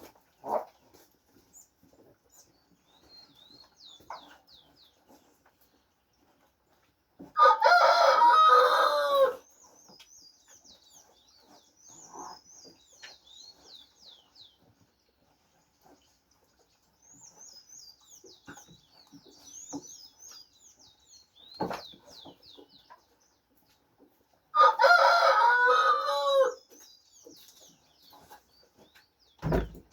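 A rooster crowing twice, each crow about two seconds long and ending on a falling note, the two some seventeen seconds apart. Small birds chirp faintly in between.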